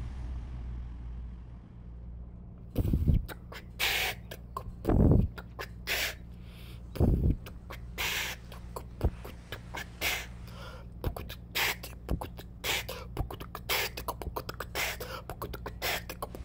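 Human beatboxing: a vocal rhythm of low kick-drum thumps, hissing snare and hi-hat sounds and rapid clicks. It begins about three seconds in.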